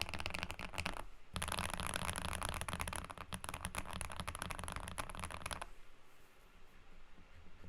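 Fast typing on a mechanical keyboard, a dense run of key clicks with a short break about a second in, stopping a little before the end.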